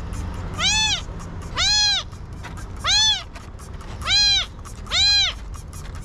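A very young kitten meowing in distress as it is held and sprayed. The cries are loud and high, each rising then falling in pitch, about one a second, five in a row.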